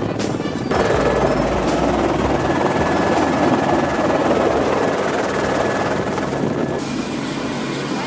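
Background music at the start, then from about a second in the loud, steady noise of a tour helicopter's engine and rotor, heard on board. The noise changes abruptly near the end.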